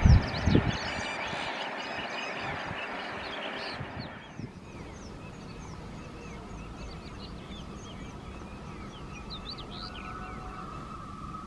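A passenger train rumbling as it moves away, with two heavy thumps at the start, while small birds chirp repeatedly. About four seconds in, the train noise drops away and the bird chirps carry on over quieter surroundings, with a faint steady tone coming in near the end.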